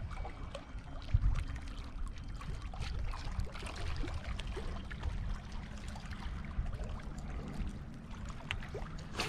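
Small waves lapping and splashing against a rocky shore and wooden dock, with many little irregular splashes over a steady low wind rumble on the microphone.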